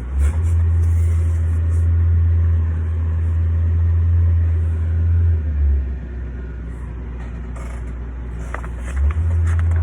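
A loud, steady low rumble. It drops away about six seconds in and comes back about three seconds later.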